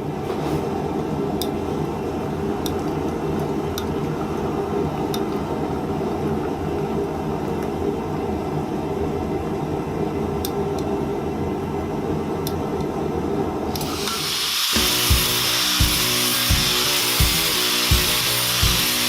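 A steady low roar, then about fourteen seconds in a power tool starts with a loud high hiss, over background music with a steady beat.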